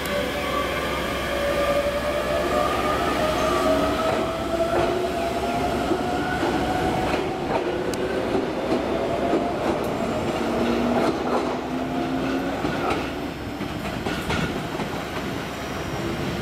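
Ichibata Electric Railway 1000 series electric train pulling away: the traction motors' inverter whine rises in pitch as it speeds up, and in the second half its wheels clack over rail joints.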